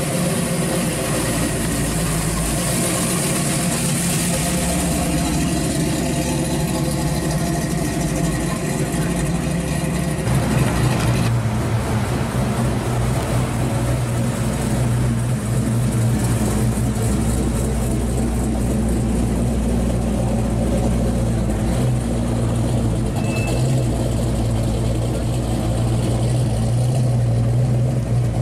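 Engines and exhausts of classic Chevrolet muscle cars running at low speed. A first-generation Camaro drives slowly past. About ten seconds in, the sound cuts to a 1970 Chevelle SS running low and steady as it rolls along and pulls away.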